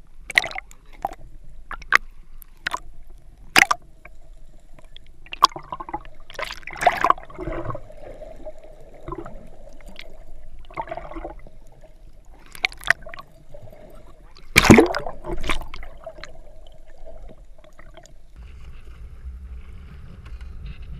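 Underwater recording: water gurgling and bubbling with many sharp clicks and knocks, and a faint steady hum through the middle. Near the end it gives way to a steady low rush of wind and sea above the water.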